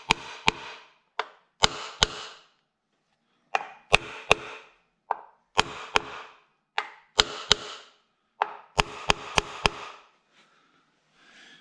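Repeated sharp knocks in irregular groups of two to four, each with a short ring, as the front timing cover of a BMW N62 V8 is struck to seat it onto the engine. The cover is a tight fit and not yet fully on.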